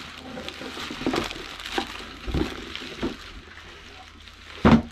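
Plastic wrapping rustling and a cardboard box scraping as a bagged bread machine is lifted out of its box, with a few soft knocks and one short, louder thump near the end.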